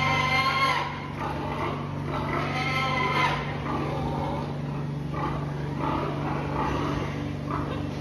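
Pigs squealing, with a longer squeal near the start and another about three seconds in, then short squeals and grunts, over a steady low hum.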